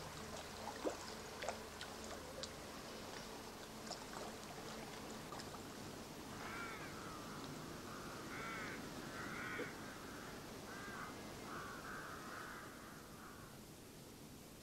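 A crow-family bird cawing: a run of about eight short calls starting about six seconds in and lasting several seconds, over a faint hiss with a few scattered ticks in the first few seconds.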